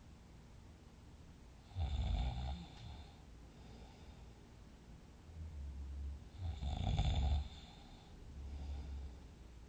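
A sleeping person snoring, with two loud snores, one about two seconds in and one about seven seconds in. Between them come softer, lower rumbling breaths.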